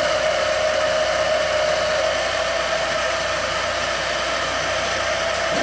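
Chicago Electric portable band saw running steadily while cutting a piece of steel: a constant motor whine with the hiss of the blade. The pitch drops slightly about two seconds in as the blade takes the load.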